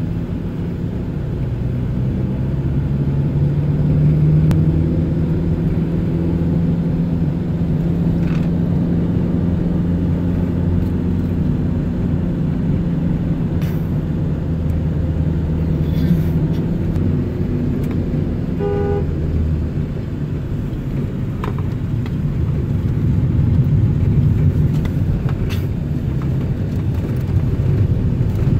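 Car engine and road noise heard from inside a moving car: a steady low drone whose engine note shifts a little as the car drives on, with a brief beep, likely a horn, about two-thirds of the way in.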